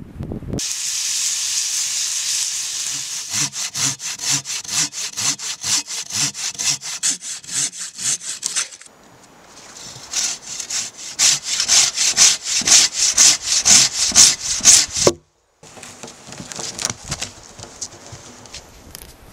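A hand saw cutting through a tree trunk in rapid back-and-forth strokes, about three a second. The strokes break off briefly near the middle, then cut off suddenly about fifteen seconds in, and a fainter run of strokes follows.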